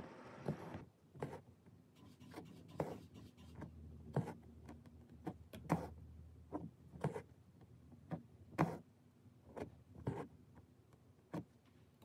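An embroidery needle repeatedly punching through taut cotton-linen fabric, with stranded cotton floss drawn through after it: short, sharp taps and brief rubbing pulls at an irregular pace of roughly one a second.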